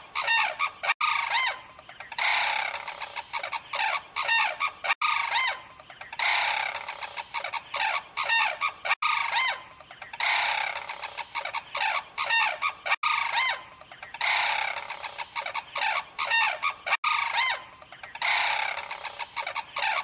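Crane calls played as a looped sound effect. The same burst repeats about every four seconds: each loop opens with a harsh, noisy call, then a run of short, falling call notes that trail off.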